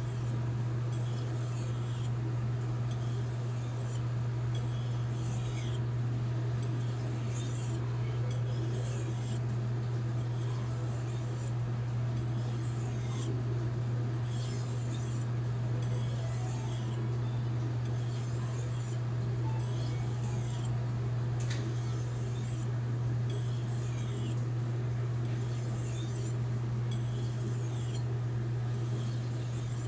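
A Blue #2 steel kitchen knife blade being stroked back and forth on a whetstone, scraping about once a second, over a steady low hum.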